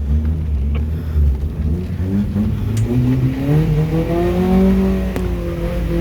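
Off-road 4x4's engine running with a low rumble, then from about two seconds in the revs climb steadily and hold high near the end as it is put under load.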